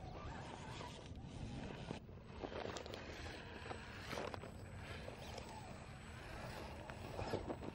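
Electric motor and drivetrain of an RC rock crawler whining and rising and falling in pitch as it climbs a rock face, with scattered clicks and scrapes of tyres and chassis on the rock.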